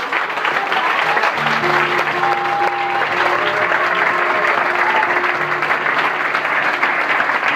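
Audience applauding steadily after a stand-up comedy set. Music with a few held notes comes in under the applause about a second and a half in.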